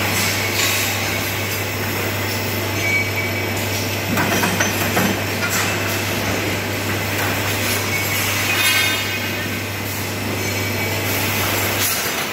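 Tejero HR-50-CNC tube bending machine running through its cycle: a steady low hum under mechanical clatter and hiss, louder about four seconds in and again about nine seconds in. The hum cuts off just before the end.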